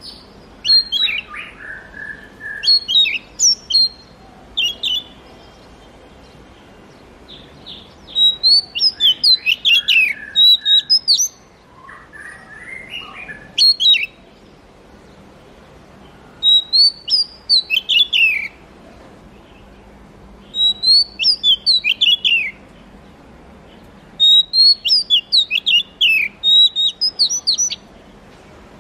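Oriental magpie-robin singing: loud bursts of quick, high whistled phrases every few seconds with short pauses between, and a few lower, harsher notes near the start and about halfway through.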